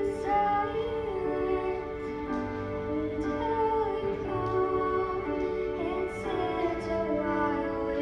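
A young girl singing a slow song into a handheld microphone, her voice gliding between held notes over sustained instrumental accompaniment.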